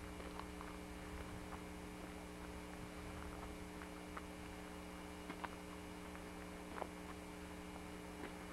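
Steady electrical hum of several fixed low tones in the recording, over faint hiss, with scattered faint crackles and a few sharper clicks about four, five and seven seconds in.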